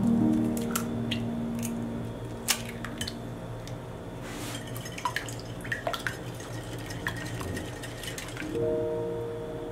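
Eggs cracked into a glass bowl and beaten with a wire whisk: scattered sharp clicks and taps of shell and whisk against the glass. Soft music plays at the start and again near the end.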